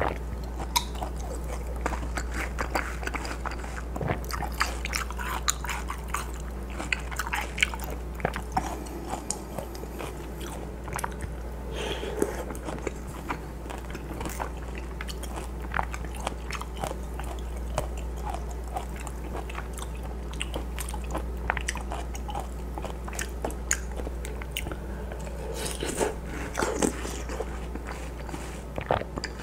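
Close-miked chewing of juicy watermelon chunks from a bowl of watermelon hwachae: wet crunches and mouth clicks, bite after bite, over a steady low hum.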